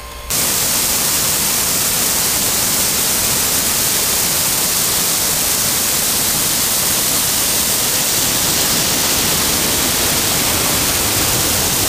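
Waterfall: a loud, steady rush of falling water that cuts in suddenly just after the start.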